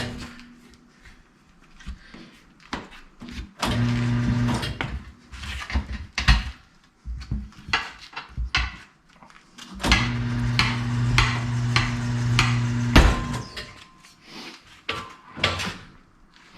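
Eagle tire machine's electric turntable motor humming in two runs, a short one about four seconds in and a longer one of about three seconds near the ten-second mark, as a stiff tire's bead is forced over the rim. Between the runs come scattered knocks and clanks of metal tools against the rim and tire.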